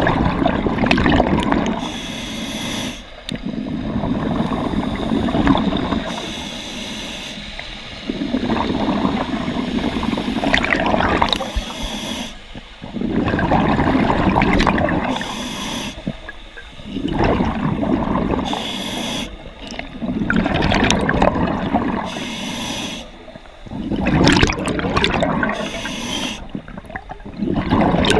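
Scuba diver breathing through a regulator underwater: each breath drawn in through the regulator alternates with a gurgling burst of exhaled bubbles, about once every three to four seconds.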